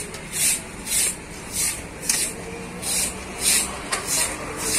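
Rhythmic scraping hiss, roughly two strokes a second, over a low background of outdoor noise.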